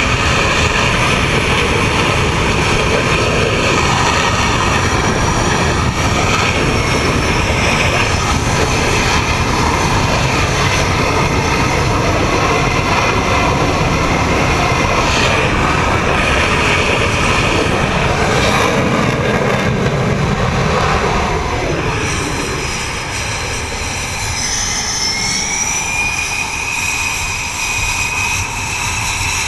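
F/A-18 jet engines running on an aircraft carrier's flight deck: a loud, steady roar that eases a little about three-quarters of the way through, then a high engine whine rising in pitch near the end.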